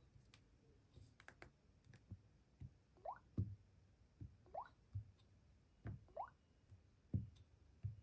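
A phone alarm tone playing softly: water-drop plops, each a quick upward glide in pitch, with soft low thuds roughly once a second, starting about three seconds in. A few faint clicks come before it.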